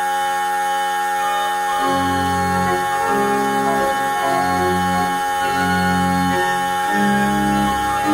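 Organ playing an early English keyboard piece: a held chord, then about two seconds in a low bass line enters, moving in steady steps beneath sustained upper notes.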